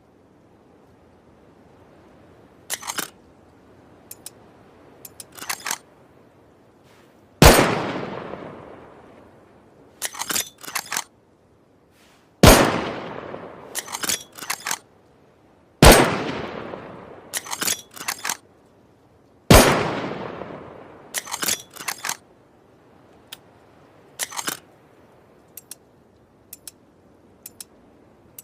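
Bolt-action rifle sound effect: four shots, each with a long fading echo, with quick clusters of clicks from the bolt being worked before, between and after the shots.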